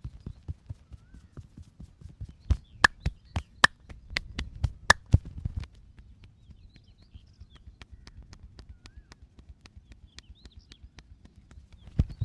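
Hand-percussion massage: hands chopping and patting rapidly on the body, several dull strokes a second. From about two and a half to five seconds in comes a run of sharp, loud cracks. After that the strokes are softer until they grow loud again near the end.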